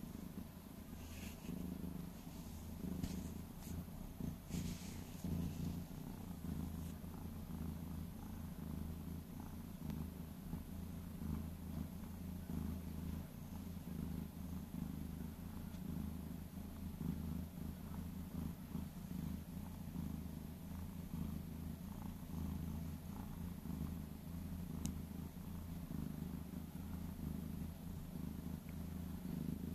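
Domestic cat purring steadily and closely while being stroked, a sign it is enjoying the petting. A few soft rustles in the first several seconds.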